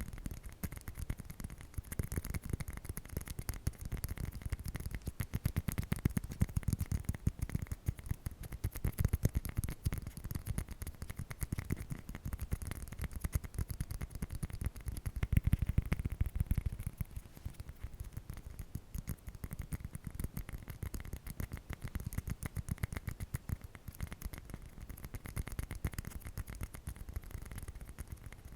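Rapid, dense ASMR tapping close to the microphone, many small clicks a second with a deep thud to them, growing louder in the middle and easing off again.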